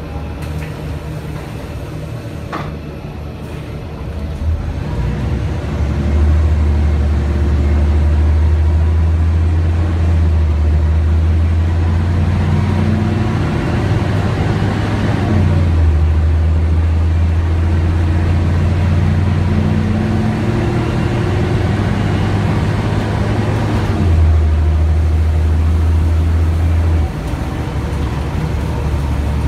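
Mercedes-Benz O 405 NH CNG bus, heard from inside the cabin: its M 447 hG gas engine takes load about four seconds in and pulls hard through the ZF Ecomat automatic gearbox. The low engine note climbs and drops back at two upshifts, then eases off near the end.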